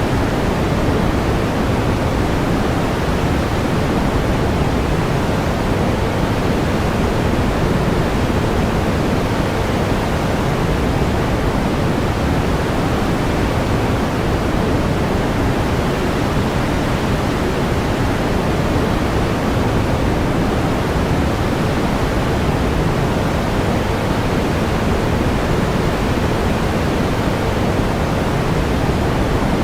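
Steady pink noise: an even hiss, heavier in the low end and softer toward the top, with no change throughout.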